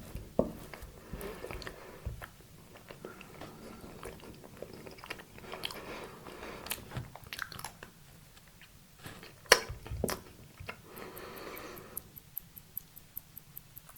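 Close-miked chewing and biting of soft cake and quark dessert, with wet mouth clicks and one sharp click about nine and a half seconds in. Near the end, a quick run of faint high ticks.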